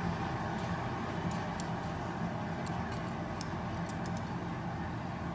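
Steady low rumble with scattered faint, sharp ticks.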